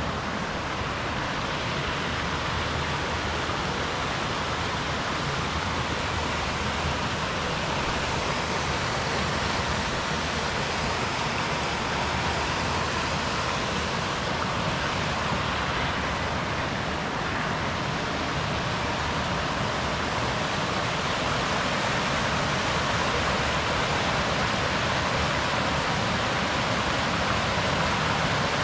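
Flowing water rushing steadily, an even hiss with no breaks or rhythm.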